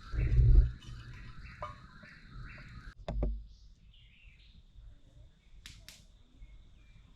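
A bird chirping in short calls about twice a second, which stop about three seconds in. Two low thumps of wind or handling on the microphone come right at the start, the first the loudest, and again about three seconds in.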